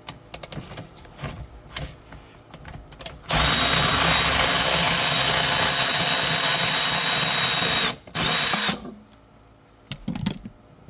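Power tool with a T50 Torx bit backing out a seat belt's floor anchor bolt: a few light clicks and knocks as the tool is set on the bolt, then the tool runs steadily for about four and a half seconds, stops briefly, and runs again for under a second.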